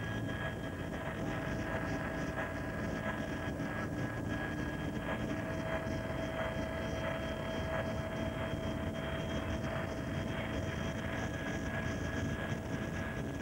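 Helicopter cabin noise: a steady engine and rotor drone with a few steady whining tones on top.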